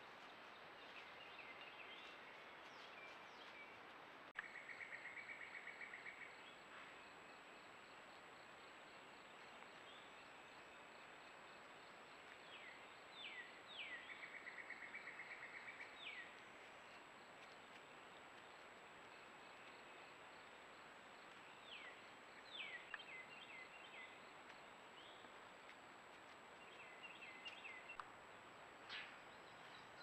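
Songbirds singing at dawn: a couple of fast dry trills, each lasting about two seconds, and quick down-slurred chirps over a faint steady hiss. A click about four seconds in, after which a thin high steady whine from the trail camera runs on.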